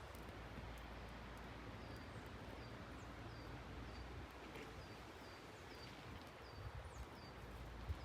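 A small bird calling repeatedly: short, high chirps, each sliding down in pitch, over a steady faint hiss of forest ambience.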